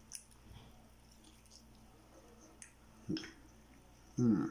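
Close-miked chewing of food with the mouth shut: soft, wet mouth clicks, with two short hums or throat sounds, about three and four seconds in.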